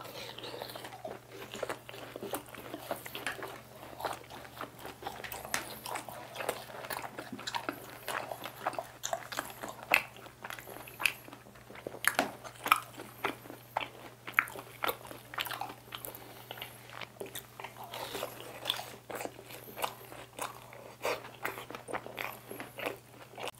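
Crispy fried chicken bites and cheese balls being bitten and chewed close to the microphone: many short, irregular crunches.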